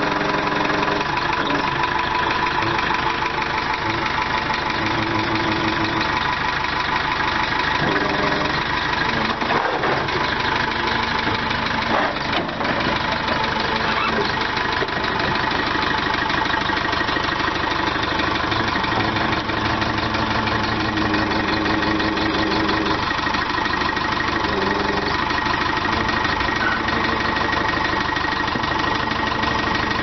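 JCB backhoe's diesel engine running steadily at idle while the front loader's hydraulics are worked to test freshly repaired hydraulic lines. The engine note shifts a few times as the bucket is raised and tilted.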